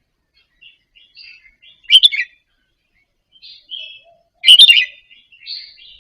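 Red-whiskered bulbul singing soft, short chirping phrases, with two louder bursts of notes about two seconds in and again about four and a half seconds in.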